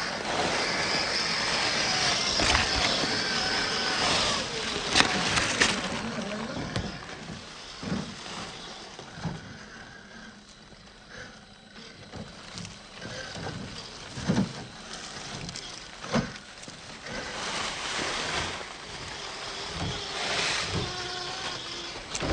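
Small RC crawler's electric motor and geared drivetrain whining, the pitch rising and falling with the throttle, over scraping and crunching as the truck crawls. Several sharp knocks come as it bumps over roots.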